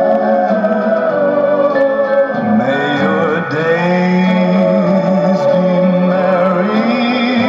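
A song with vibrato singing and instruments playing on a vintage Columbia high-fidelity record console.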